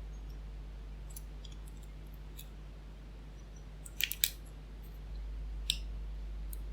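Small metal clicks of a pick and tension tool working the tiny sliders of a tubular cam lock: a few faint ticks, then two sharper clicks about four seconds in and one more near the end, over a low steady hum.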